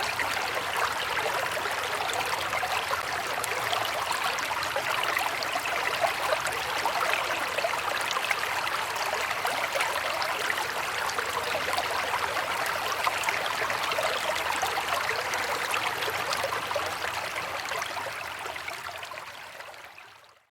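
River water flowing steadily, a continuous rushing babble with small splashes, fading out over the last few seconds.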